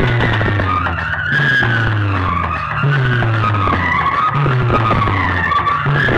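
Competition DJ track blasting from a large loudspeaker sound system. A deep, heavy bass figure repeats about every second and a half, under harsh, wavering, gliding high tones.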